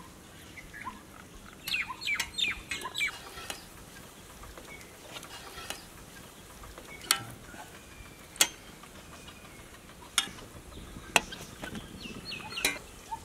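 Chickens clucking, a quick run of short calls about two seconds in and a few more near the end. Several sharp metal clinks, the loudest sounds, come one to two seconds apart as a spatula and tongs lift French toast off an iron griddle onto a steel plate.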